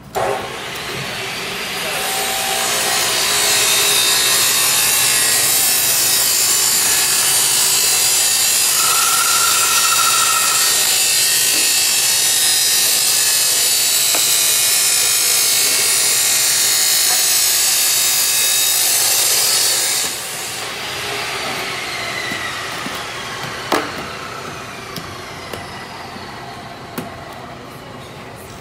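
A motor-driven machine spins up, runs with a loud steady hiss for about eighteen seconds, then cuts out and winds down with a falling whine.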